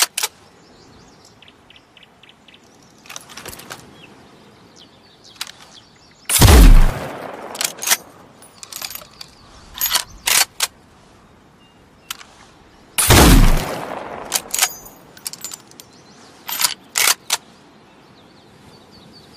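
Chassepot needle-fire bolt-action rifle firing two single shots about seven seconds apart, each with a tail that dies away over about a second. Short metallic clicks of the bolt being worked come before, between and after the shots.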